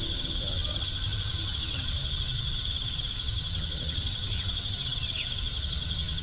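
A steady, high-pitched chorus of insects such as crickets or cicadas, over a low rumble.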